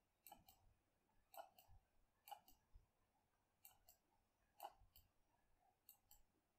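Faint computer mouse button clicks, about eight spread unevenly, over near-silent room tone.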